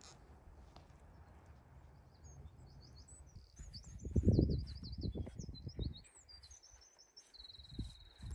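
Small birds singing: quick high chirps and twittering phrases from about two seconds in, ending in a steady high trill. Low thuds and rumble, loudest about halfway through, run underneath.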